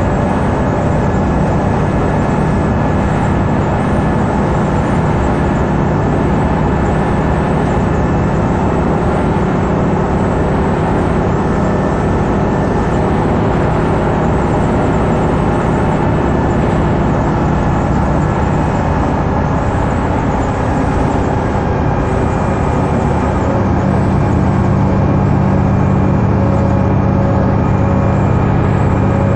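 Cabin sound of a 2011 New Flyer D60LFR articulated bus (Cummins ISL 9.8 diesel, Allison B500R transmission) cruising at freeway speed: a steady diesel drone with several held tones over tyre and road noise. The low drone grows a little louder about 23 seconds in.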